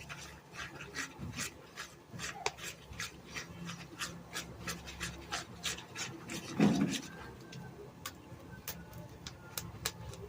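Sticky toothpaste slime being stirred and mixed by hand: a repeated scraping, about three strokes a second. There is one louder dull thump about six and a half seconds in.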